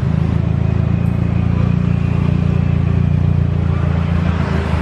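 Toyota Corolla Altis exhaust through an aftermarket NDK Pro Street muffler, the engine idling steadily with a deep, even exhaust note and no revving.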